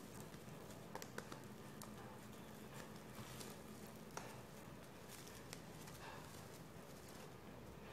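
Faint handling sounds: a few soft clicks and rustles as fingers push a needle and thread through a ball of foam flowers, over a low steady hum.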